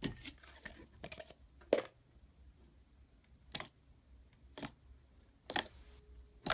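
A series of sharp, crisp clicks, about one a second, over a faint background.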